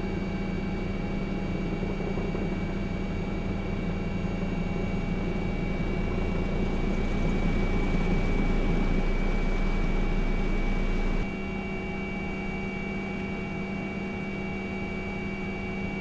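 Steady drone of a helicopter's turbine engine and rotors: a constant high whine over a low hum. The low rumble drops away about eleven seconds in.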